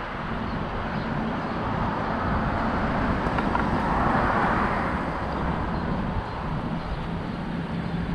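Outdoor traffic noise: a steady rush of road traffic with a low hum, swelling as a vehicle passes about four seconds in.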